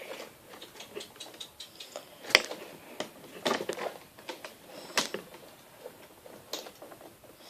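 Lego Technic plastic parts being handled and pulled apart: irregular light clicks and ticks of pins and axles coming loose, with a few sharper snaps.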